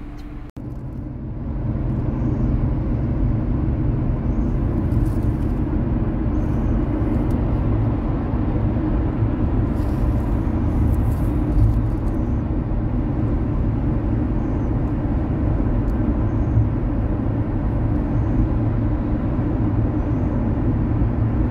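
Steady low rumble of road and wind noise from a moving car, heard from inside the cabin. It swells up over the first couple of seconds and then holds level.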